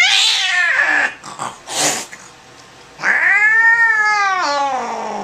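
Angry domestic cat yowling while held down for examination: a long drawn-out yowl that stops about a second in, a short hiss a little later, then a second long yowl from about three seconds in that falls in pitch as it trails off.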